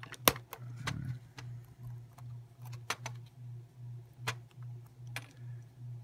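Small metallic clicks and ticks as tweezers work at a brass padlock cylinder held in the fingers, with one sharp click about a third of a second in. Under them runs a low hum that pulses about two to three times a second.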